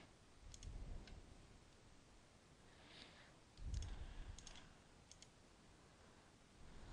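Faint computer mouse clicks, a handful spread over several seconds, with a couple of soft low thumps.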